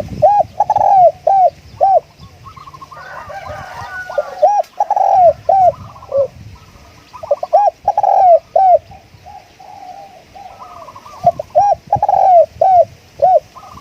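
Spotted dove cooing: four loud phrases of several rising-and-falling coos each, about every three to four seconds. Fainter chirps of other birds sound in the gaps.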